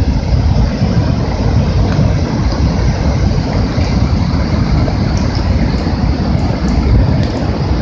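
Strong storm wind buffeting the camera's microphone: a steady, heavy rumble.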